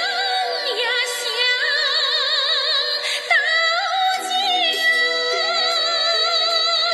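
Background song: a woman singing a Chinese melody with a wide vibrato over a sustained instrumental accompaniment.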